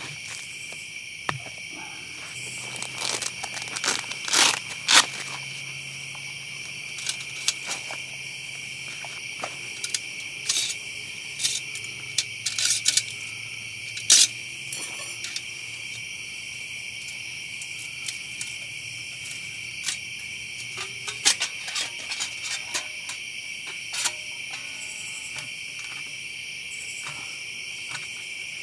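Steady night chorus of crickets, with scattered clicks, light knocks and scrapes as a folding metal Firebox stove is handled and unfolded on the ground.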